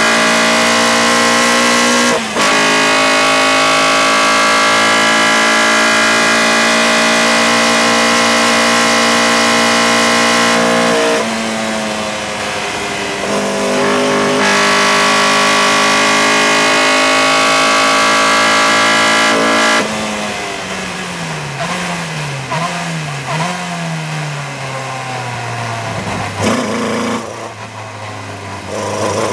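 A race car's engine heard from inside the open cockpit over wind noise, running flat out at high revs with a brief lift about two seconds in and a softer patch around eleven seconds. About twenty seconds in, the driver comes off the throttle and brakes hard for a slow corner, and the engine note rises in three quick throttle blips on the downshifts. It then runs lower and rougher before starting to pick up again near the end.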